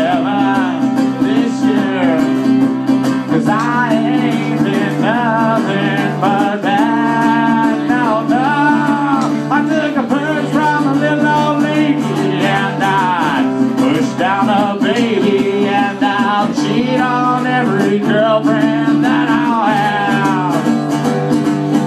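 A man singing and playing an acoustic guitar.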